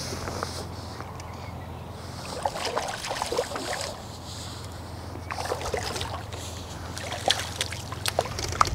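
A hooked carp splashing and swirling at the surface while it is played on a pole close in, in one spell of splashing about two and a half seconds in and another from about five seconds on.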